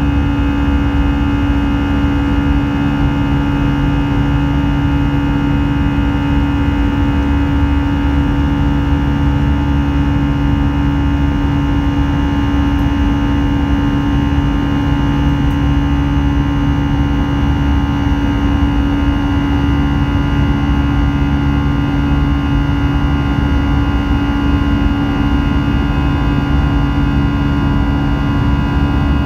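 Airbus A320-200's CFM56-5B turbofan engines heard from inside the cabin in flight: a steady drone with a strong low hum and several fixed higher whines over a rumble of rushing air.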